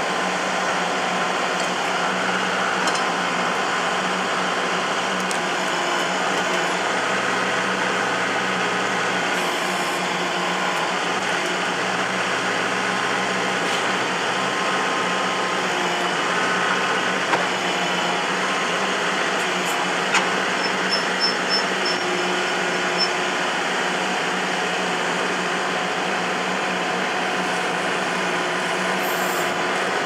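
Kubota MX5100 tractor's diesel engine running steadily while it powers the BH92 backhoe's hydraulics, lowering the stabilizer legs and starting to dig. A few short knocks come about two-thirds of the way through.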